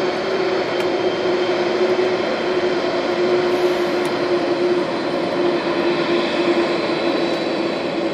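Boeing 747-400 jet engines running steadily on the ground: a continuous drone with a thin high whine over it.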